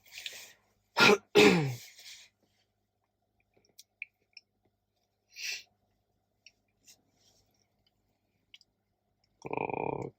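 A man coughs and clears his throat about a second in, followed by a few faint clicks and a short breath, with another brief throat sound near the end.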